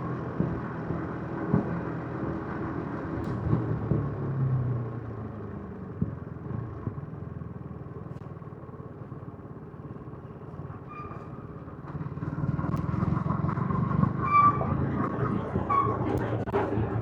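Yamaha MT-15's 155 cc single-cylinder engine on its stock exhaust, heard from the rider's seat while riding. The engine note eases off about four seconds in and stays lower through the middle, then picks up again about twelve seconds in as the bike accelerates. A few short, high beeps sound in the second half.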